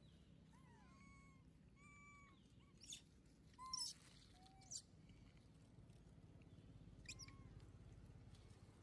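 Long-tailed macaques giving a handful of faint, short arched coo calls, mixed with a few sharper high squeaks; the loudest squeak comes a little under four seconds in.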